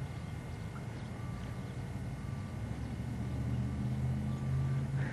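A low, steady engine drone that grows louder toward the end, as of a passing motor vehicle or aircraft.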